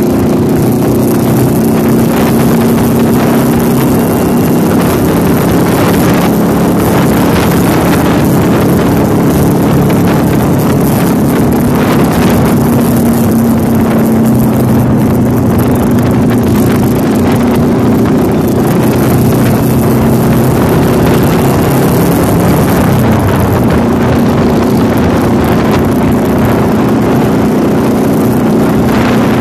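Motorcycle engine droning steadily while riding, its pitch shifting slightly now and then, mixed with rushing wind on the microphone.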